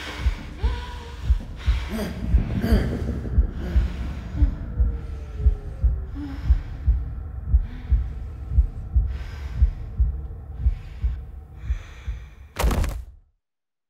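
Heartbeat sound effect, a steady low thump about twice a second over a low hum, ending in a short loud burst and a sudden cut to silence.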